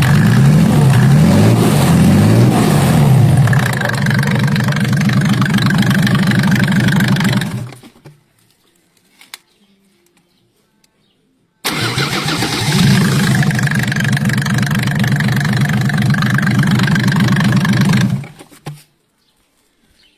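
Mercedes-Benz diesel engine running, then shut off and dying away about eight seconds in. After a few seconds of quiet it is suddenly running again, runs steadily for about six seconds, and dies away once more.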